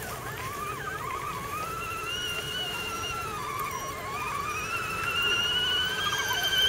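Electric motors of 1/10-scale RC crawler trucks whining, the pitch sliding up and down with the throttle and rising, a little louder, near the end as the lead truck comes closer.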